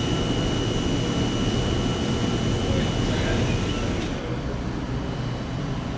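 Steady low mechanical rumble with a thin high whine over it. About four seconds in, the sound changes abruptly, the whine stops and the high end drops away.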